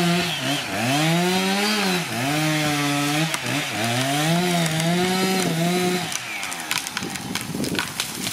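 Chainsaw cutting through a conifer trunk at high revs, its pitch dipping and recovering several times as it bogs in the cut. About six seconds in the engine note drops away and the tree goes over with a run of cracking and snapping wood and branches.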